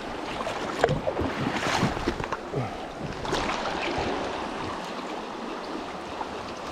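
River water running, with a few irregular splashes in the first few seconds.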